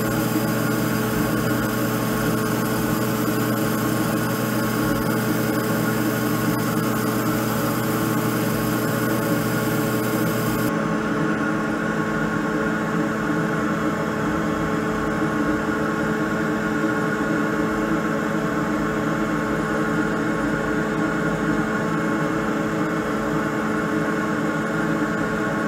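xTool D1 Pro 10 W diode laser engraver running as it burns a design into a wooden tag. It makes a steady hum of several tones from its fan and motors. A hiss on top drops away about ten seconds in.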